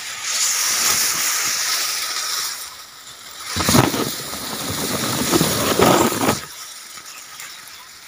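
Grass blades and leaves rustling and scraping against the phone's microphone as the undergrowth is parted. The sound swells, is loudest from about three and a half to six and a half seconds in, then dies down.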